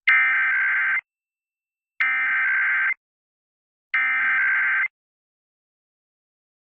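Emergency Alert System SAME header tones: three bursts of rapid digital data tones, each just under a second long and about a second apart, which mark the start of a broadcast test alert.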